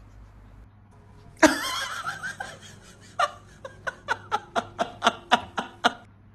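A person laughing: a sudden burst of laughter about a second and a half in, then a run of short rhythmic "ha-ha" pulses, about four a second, that stops near the end.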